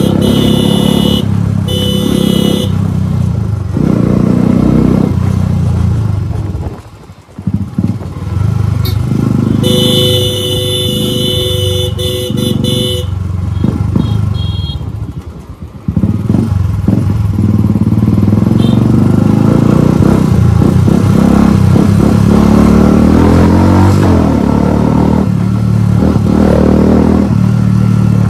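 Motorcycle engine running while riding, with a vehicle horn sounding twice: briefly near the start and for about three seconds in the middle. The engine sound dips away twice, then runs strongly and rises in pitch as it accelerates in the second half.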